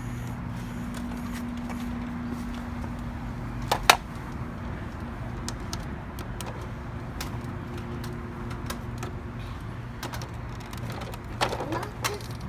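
Small clicks and knocks of toy trucks handled among rocks, with one sharper knock about four seconds in, over a steady low hum.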